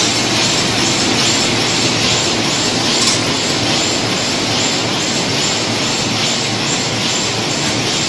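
Automatic blister packaging and cartoning line running: a steady mechanical din of conveyors and packing machinery, with a faint regular clatter.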